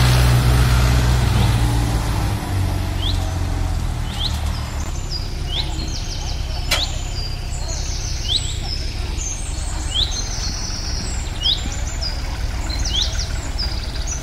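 Tractor diesel engine running, loudest at the start and easing off over the first couple of seconds, then a steady low rumble. From about three seconds in, birds chirp over it again and again, with one sharp click about halfway through.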